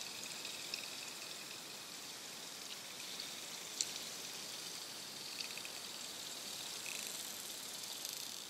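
Underwater ambient noise: a steady, quiet hiss with a few faint, scattered clicks, beginning to fade out near the end.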